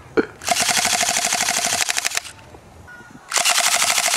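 Electric airsoft pistol, converted to fully automatic, firing two long bursts of rapid, evenly spaced shots. The first burst lasts under two seconds; the second starts about three seconds in.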